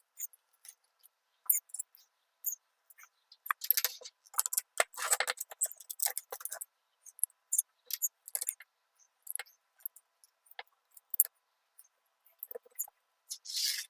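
Light clicking and scraping of small metal hardware handled by hand: washers and a lock nut being fitted onto a bolt, in scattered short clicks with a few longer scrapes.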